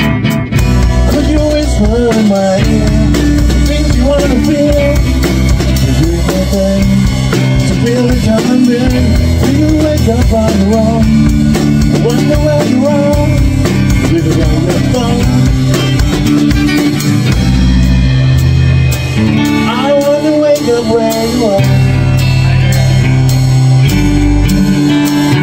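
A small band playing live: a strummed acoustic guitar, an electric guitar playing lead lines with gliding notes, and a drum kit keeping a steady groove.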